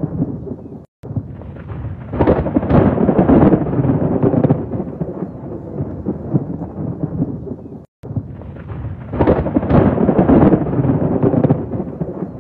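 Thunder rumbling in two long rolling peals over a steady wash of rain. Each peal follows a brief cut to silence, and the two look nearly identical.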